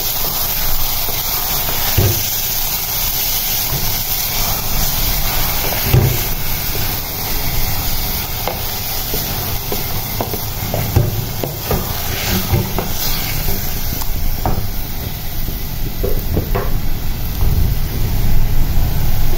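Minced mutton sizzling steadily as it fries in mustard oil in a metal pot, stirred with a wooden spatula that knocks against the pot now and then. The keema has just gone in on top of fried onions and ginger-garlic paste to be browned.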